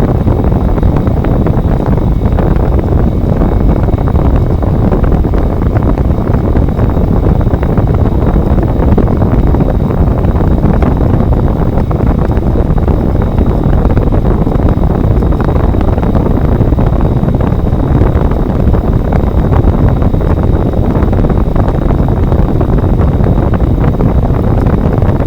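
GE 5,050 BTU R-22 window air conditioner running steadily after a cold start in 2-degree weather, its fan blowing air across the microphone as a loud, even rush, with a faint steady high tone over it.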